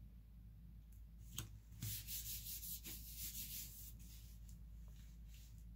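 Hands rubbing and pressing a cardstock photo mat flat onto scrapbook paper: a light tap, then a run of papery rubbing strokes starting about two seconds in that fade away.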